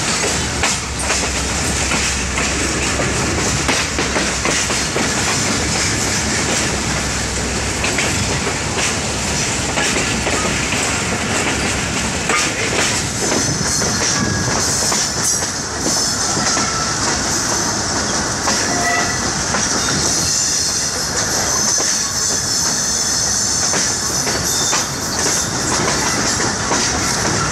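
Passenger train coach running on the rails, heard from its open window: the wheels clatter over rail joints and points, and from about halfway through a high wheel squeal comes and goes as the coach crosses the station yard's pointwork.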